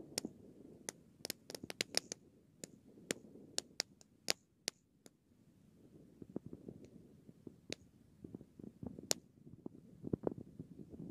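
A lit string of small firecrackers going off in scattered, irregular pops: about twenty sharp cracks in the first five seconds, then only a few more spread out, rather than one rapid burst.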